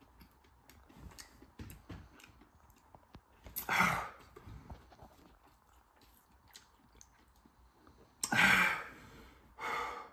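A man breathing hard in pain from extremely hot Carolina Reaper chicken. Three loud, breathy huffs and sniffs come through: one about four seconds in, then two near the end, the first of those the loudest. Faint mouth clicks sound between them.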